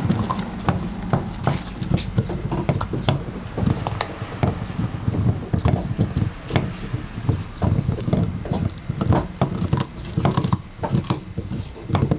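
Basset hound chewing and gnawing on a dog chew: a quick, irregular run of clicks and smacks close to the microphone.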